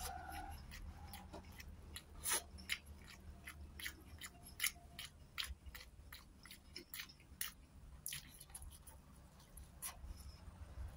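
A person chewing food up close with the mouth working wetly: irregular faint clicks and smacks, several a second at times. A steady low hum lies under it.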